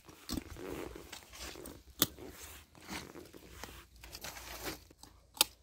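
Knife cutting through the breastbone cartilage of a pig carcass: irregular crunching and scraping, with two sharp cracks, about two seconds in and near the end.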